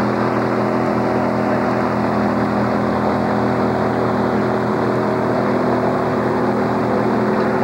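NASCAR-style stock car's V8 engine idling steadily, a deep even drone with no revving.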